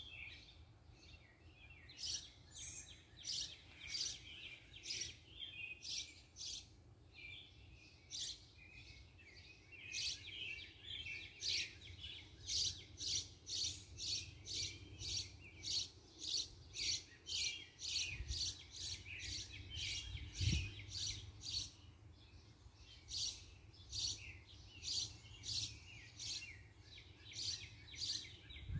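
Birds chirping: a long run of short, high chirps repeated about twice a second, with a few brief pauses.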